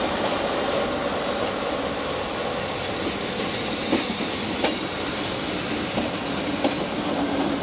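Passenger coaches of a train rolling past close by: a steady rumble of steel wheels on the rails, with a few sharp clacks as the wheels cross rail joints.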